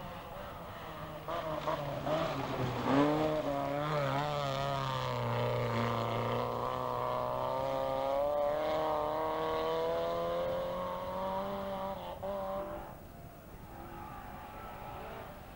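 Rally car's engine at high revs passing on a gravel forest stage: it builds quickly with its pitch wavering through gear changes, then holds a steady note as it drives away and fades near the end.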